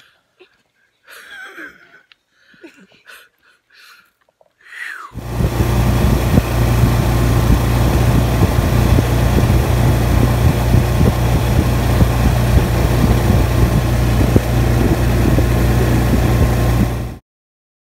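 35-horsepower Swamp Runner longtail mud motor running steadily at speed, pushing a loaded boat, with wind and water noise on the microphone. It comes in suddenly about five seconds in and cuts off suddenly near the end, after a faint low voice.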